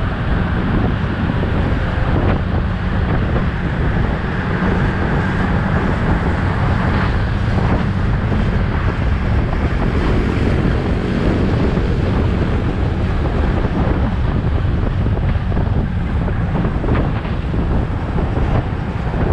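Wind rushing over the microphone of a moving scooter, a steady loud rumble, with the scooter's engine running beneath it.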